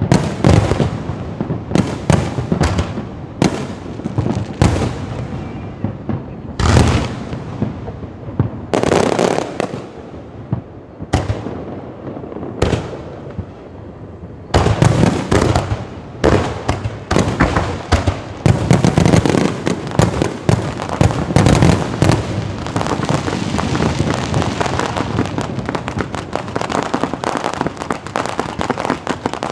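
Fireworks and firecrackers going off: separate loud bangs with echoing tails, becoming a dense, fast crackle of bursts about halfway through.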